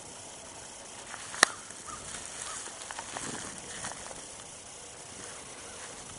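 Steady outdoor background hiss with faint rustling, and one sharp click about a second and a half in.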